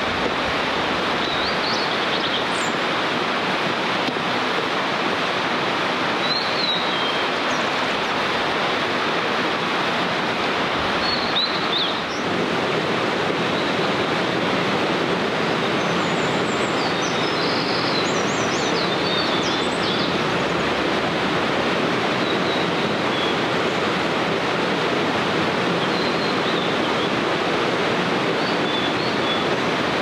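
Steady rushing water, the loudest sound, with short, high, whistled song phrases of a blue-and-white flycatcher coming faintly over it every few seconds, most often a little past the middle.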